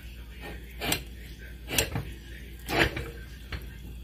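A spoon scraping and knocking against a ceramic bowl while stirring thick salt-cod fritter batter, four short strokes about a second apart.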